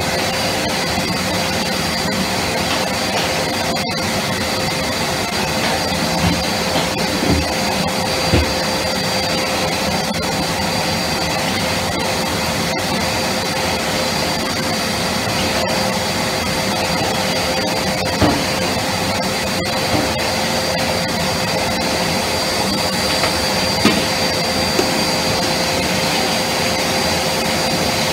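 Cylinder vacuum cleaner running steadily with a constant whine as it is used on a floor, with a few short knocks scattered through.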